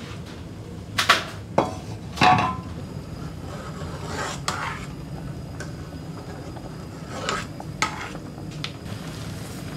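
Kitchen utensils knocking and clinking against pots and dishes while cooking: a handful of separate clatters, the loudest about two seconds in, over a steady low hum.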